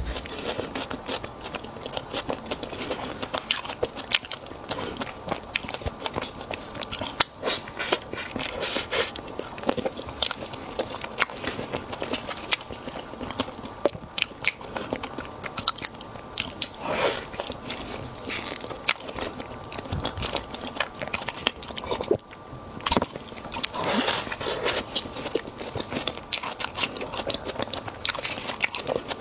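Close-miked eating sounds: steady biting and chewing with frequent crunches, an irregular stream of small clicks and bites.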